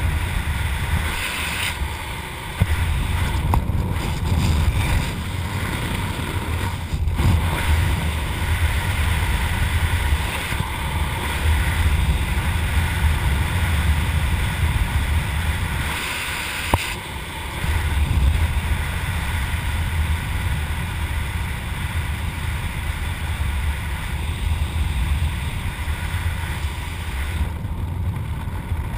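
Wind buffeting a helmet camera's microphone during flight under an open parachute canopy: a steady low rumble. It dips twice, briefly about two seconds in and for a second or so midway, each dip ending in a sharp click.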